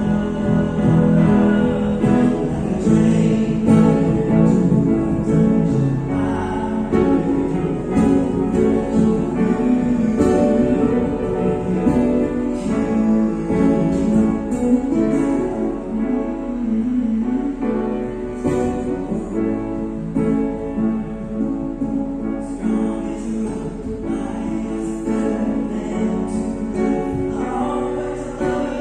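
A song with singing and guitar, played for a sound test through JBL SRX 815 PA loudspeakers, running steadily with no breaks.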